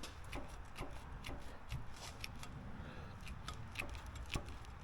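Scattered light clicks and rustles, a dozen or so irregular ticks over a faint low rumble.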